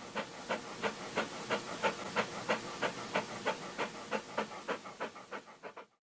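A dog panting in quick, even breaths, about three a second, cut off abruptly at the end.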